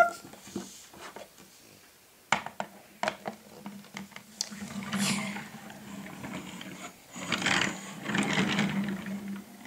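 Plastic toy campervan clicking and knocking as it is handled, then its small plastic wheels rolling across a wooden tabletop with a steady whir. The rolling comes about five seconds in and again, longer, near the end.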